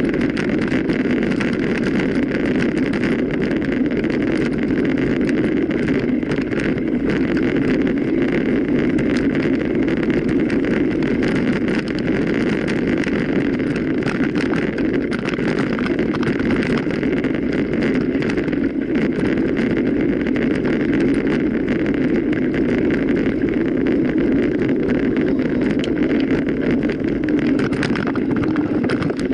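Steady rumbling noise of a mountain bike ride: wind on the microphone mixed with tyres rolling over the ground, going on without a break.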